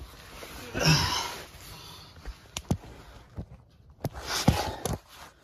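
Handling noise: rustling and a few sharp clicks as hands move a glove and a plastic wiring connector, with a short breathy sound about a second in.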